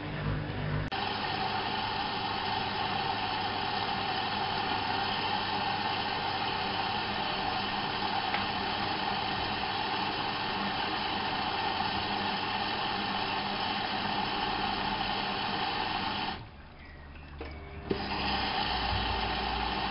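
Whirlpool AWO 5346 washing machine running with a steady electric whine. The whine starts abruptly about a second in, cuts out briefly near the end, then starts again.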